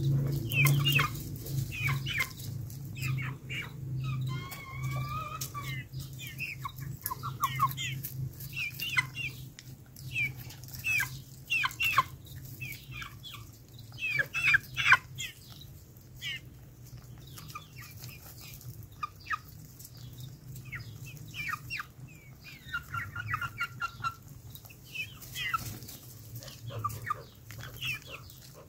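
Chickens clucking and giving short calls while pecking at a piece of orange held out by hand, with frequent sharp taps of beaks on the peel. A steady low hum runs underneath.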